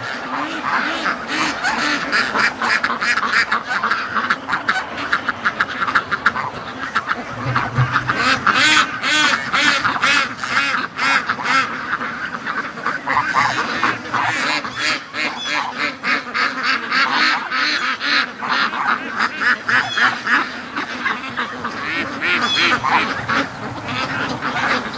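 A flock of domestic ducks quacking continuously as they walk in a line, many loud calls overlapping.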